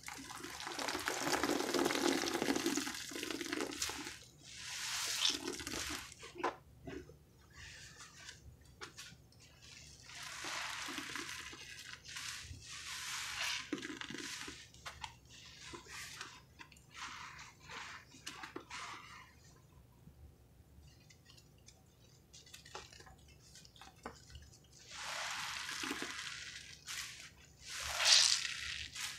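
Wet sponges full of foamy pine-cleaner lather being squeezed and wrung in a basin of soapy water: squelching, squishing and dripping in bursts of one to three seconds, with small drips between. The loudest squeeze comes near the end.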